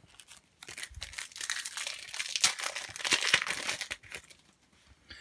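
A Panini Adrenalyn XL FIFA 365 booster pack's wrapper crinkling and tearing in the hands as it is opened: a dense crackle of many small clicks, starting just under a second in and lasting about three seconds.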